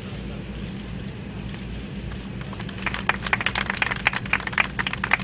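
A steady low hum, then from about three seconds in a run of quick, irregular claps, like a group clapping by hand.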